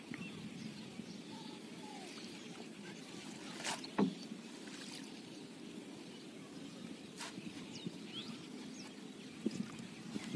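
Water lapping and swirling against a wooden boat's hull as it is poled slowly along with a bamboo pole. There is one sharp knock about four seconds in and a lighter click later on.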